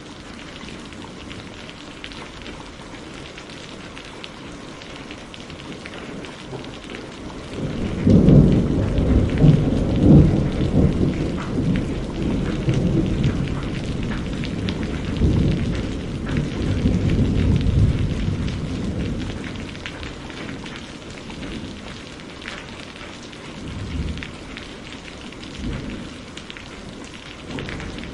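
Heavy rain falling steadily. About eight seconds in, a long roll of thunder breaks in suddenly and rumbles for about twelve seconds before fading, followed by two short low rumbles near the end.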